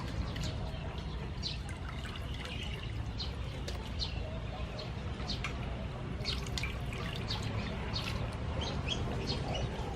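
Water sloshing and dripping as squid is rinsed by hand, with many short bird chirps in the background.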